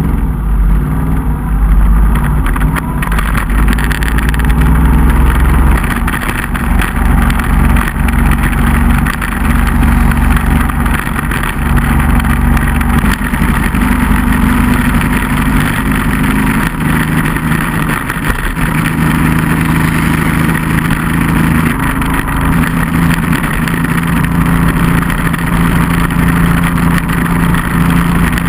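Onboard sound of a motorcycle riding at road speed: the engine runs steadily, its note stepping up and down every few seconds with throttle and gear changes, under a steady rush of wind on the microphone.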